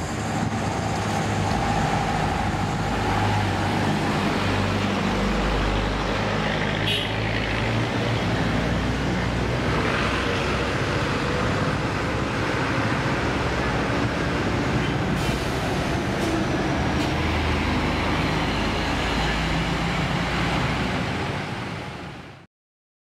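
Large bus engine running amid road traffic noise, a steady low hum, which fades and cuts off abruptly near the end.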